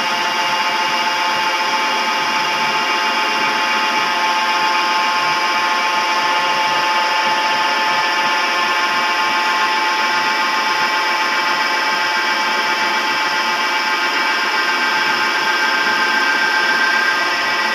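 Manual metal lathe running through a thread-cutting job: a steady, high-pitched machine whine made of several held tones.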